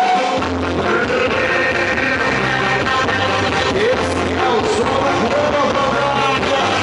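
Live axé band music with a pulsing bass line and a voice singing over it.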